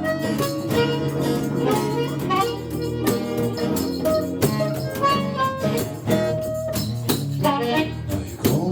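Blues harmonica solo over a strummed acoustic guitar accompaniment with a steady beat, the harmonica holding and bending notes.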